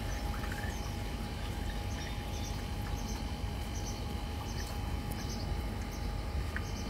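Water poured from a plastic bottle into a centrifugal surface pump's priming port, filling the pump casing before first start, over a low steady background rumble with repeated short high chirps.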